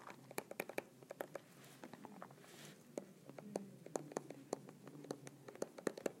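Faint, irregular taps and light scratches of handwriting on an iPad touchscreen, several small clicks a second.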